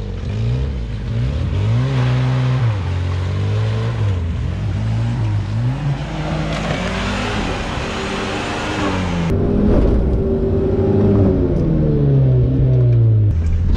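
Suzuki Vitara 4x4 engine revving up and down again and again while the vehicle drives off-road in mud. A rushing noise rides over it for a few seconds past the middle.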